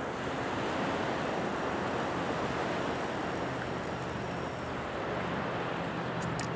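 Steady wash of low surf on a sandy beach, with a low, even hum underneath that grows a little stronger in the second half.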